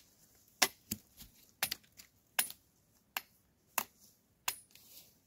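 A large curved knife chopping at a thin wooden stick. There are seven sharp strikes, roughly two-thirds of a second apart, and some carry a brief high metallic ring.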